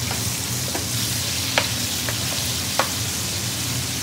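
Chicken pieces sizzling steadily as they are seared in hot oil and ghee in an aluminium frying pan, sealing the meat before it goes into the curry. A few sharp clicks of a metal spoon against the pan, the loudest about one and a half seconds in and near the end, as the pieces are turned and basted.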